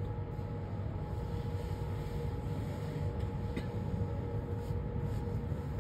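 Steady low rumble of a large hall's background noise, with a faint steady hum from the sound system and a couple of faint clicks.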